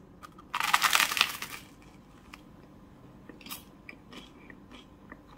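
A crunchy bite into a toasted baguette open sandwich, a dense crackle about half a second in lasting about a second, followed by faint crunching as it is chewed.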